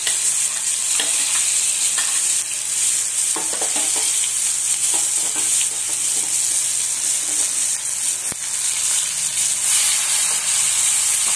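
Chopped onions and curry leaves sizzling steadily in hot oil around frying boiled eggs, as a metal spoon scrapes and stirs in the metal pot.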